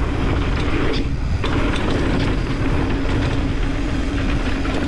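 Mountain bike rolling fast down a rough dirt trail: a steady rumble of tyres and wind on the camera microphone, with a constant hum and scattered short rattles.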